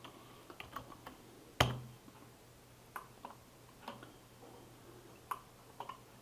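Computer keyboard keystrokes and mouse clicks: about a dozen scattered, separate taps, one louder than the rest a little over a second and a half in.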